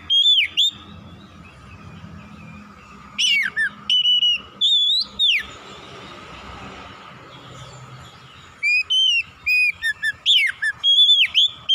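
Oriental magpie-robin (kacer) singing loud whistled phrases of sliding notes. A short phrase comes at the start and a few more around three to five seconds in. After a pause of about three seconds, a quick run of notes carries on to the end.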